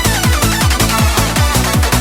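Fast electronic dance music with a driving kick drum, about four beats a second, and synth lines.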